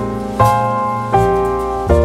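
Background piano music: a gentle piece with a new chord struck about every three-quarters of a second, three times, each fading after it is struck.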